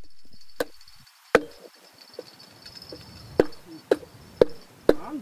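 A series of about seven sharp knocks, irregularly spaced half a second to a second apart, over a faint steady high-pitched buzz.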